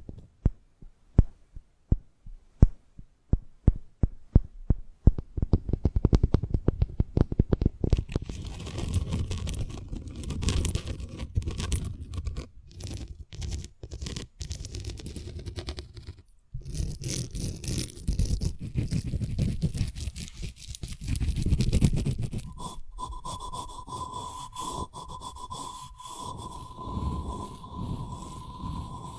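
Close-up crackling, cracking and scraping of a big dry seed pod being handled and opened: first a run of sharp separate cracks, then denser crackling and rustling. In the last quarter a steady high whine joins.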